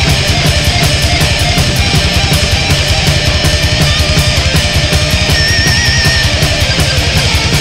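Melodic blackened death metal: distorted guitars over fast, even, pounding drums. A high held note wavers with vibrato about three quarters of the way through.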